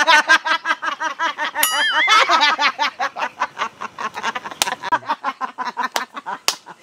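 Two men laughing hard, a fast run of loud ha-ha pulses, several a second, with one brief high squeal about two seconds in.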